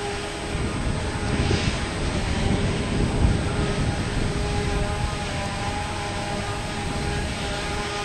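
Heavy diesel farm machinery running: a steady engine drone over a low rumble, with a whine held on a few steady pitches. It grows louder from about one and a half seconds in to about four seconds in, then eases back.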